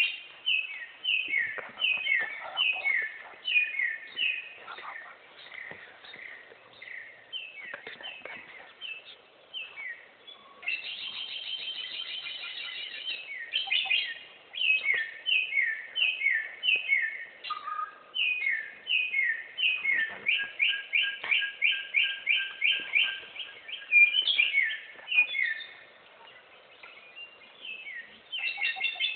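Bare-throated whistler (garugiwa) singing loud, varied phrases: series of short, quickly repeated notes, with a fast buzzing trill about a third of the way in and a rapid run of notes past the middle.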